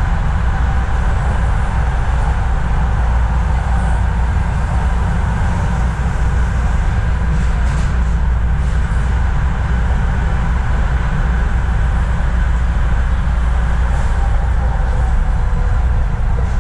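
Toronto Line 1 Yonge subway train running at speed between stations, heard from on board: a loud, steady rumble of wheels on rail and traction motors.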